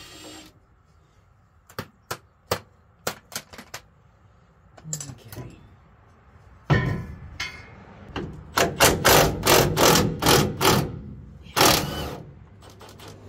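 Cordless impact wrench hammering at a stubborn fastener on the truck's driveline. It runs hard for a second or two, then goes in short bursts about three a second, with one last burst near the end. A few light metal clinks of tools come before it.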